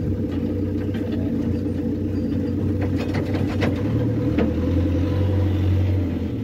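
Heavy diesel engine idling steadily, heard from inside a truck cab. About four seconds in it grows a little louder and deeper for a couple of seconds, and there are a few light clicks and rattles around the middle.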